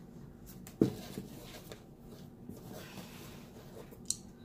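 Cosmetic product packaging being handled: a sharp knock about a second in, then soft rustling, and a short click near the end.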